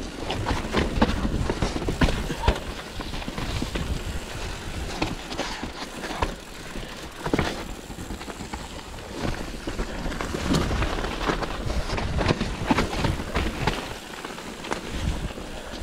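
Commencal mountain bike rolling down a wet, rocky dirt trail: tyres crunching over gravel, rocks and roots, with the chain and frame rattling in frequent knocks. Wind rumbles on the handlebar-mounted camera's microphone.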